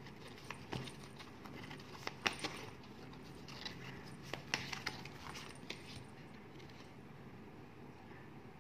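Divination cards being handled and laid down on a table: a scatter of light clicks and taps over the first six seconds or so, then faint room tone.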